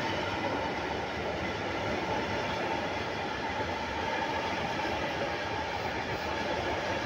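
Freight train wagons rolling past on the station tracks, a steady noise of steel wheels on rails.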